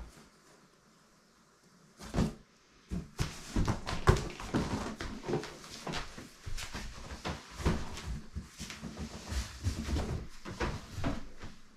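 A cardboard box being handled and plastic storage drawers being opened and shut: a run of irregular knocks, clunks and rustles that starts about two seconds in.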